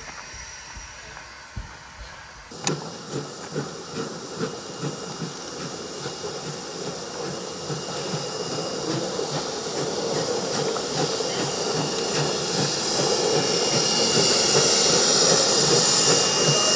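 Former Commonwealth Railways NM-class steam locomotive NM25 working along under steam: steady exhaust chuffs at about two to three beats a second over hissing steam from around its cylinders, growing steadily louder as it approaches. The first couple of seconds hold only a quieter hiss of the engine standing in steam.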